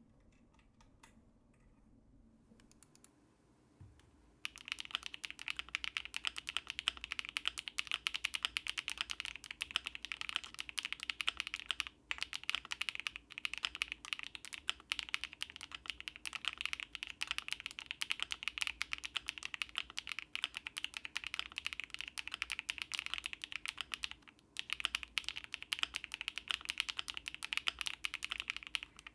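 Fast, continuous typing on an Akko MonsGeek M1W mechanical keyboard with HMX Cheese switches, a polycarbonate plate and doubleshot ABS keycaps: a dense run of key clicks. It starts about four seconds in and breaks off briefly twice.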